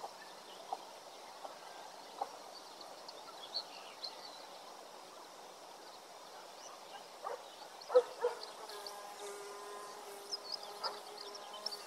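Outdoor garden ambience: small birds chirping faintly, with scattered light clicks. About eight seconds in comes a sharp knock, followed by a steady pitched sound held for about three seconds.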